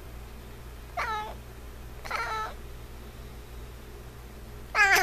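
F6 Savannah cat meowing: three short meows, about a second in, about two seconds in, and a louder one near the end.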